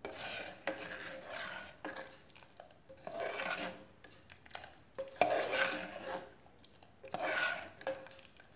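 Metal spoon stirring thick chicken and egg-white soup in an aluminium pressure-cooker pot: four bouts of swishing, scraping strokes with a few light clicks of metal on metal.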